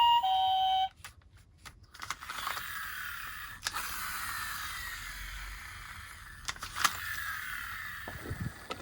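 A toy ambulance's two-tone electronic siren alternates between two pitches and cuts off about a second in. Then come a few light plastic clicks and a steady whirring rattle of small toy-car wheels rolling down a slope, with occasional sharp clicks.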